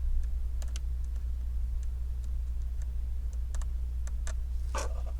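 Scattered light clicks and taps of a small nut and tools being handled on a laptop's plastic hinge mount, over a steady low hum, with a short rustle near the end.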